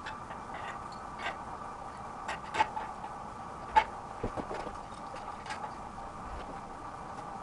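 Scattered light clicks and taps of small parts being handled as a round LED spotlight is fitted to an e-bike's handlebars, the sharpest click about halfway through. A steady faint hum runs underneath.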